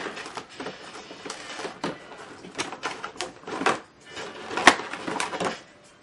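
Plastic and cardboard packaging handled by hand: irregular crinkling, rustling and clicks, with one sharp snap a little past the middle.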